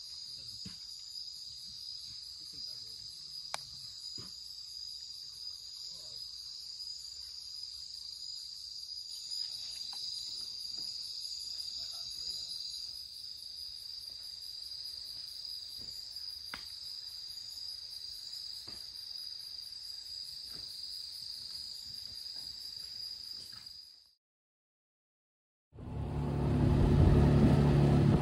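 Night insect chorus: a steady, high, pulsing trill with a few faint ticks. Near the end, after a brief silence, it gives way to a motorboat engine running loudly.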